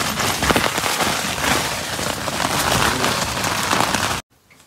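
Heavy rain beating on a tent, a dense crackling patter heard from inside, which cuts off suddenly near the end.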